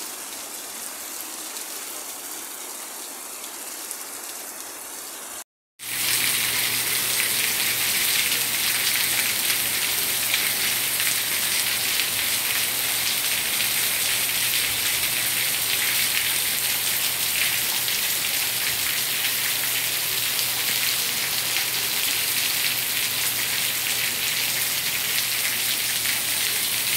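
Heavy rain falling steadily on roofs and paving, a continuous hiss. It cuts out briefly about five and a half seconds in and comes back louder, with a faint steady hum underneath.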